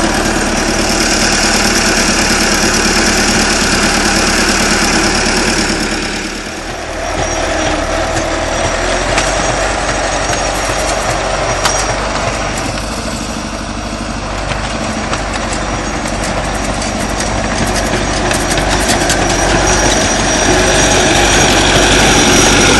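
Crawler tractor's diesel engine running steadily, with a brief drop in loudness about six seconds in.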